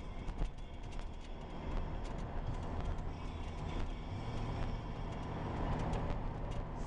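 Car driving along a road, heard from inside the cabin: steady engine and tyre rumble with light clicks and rattles throughout.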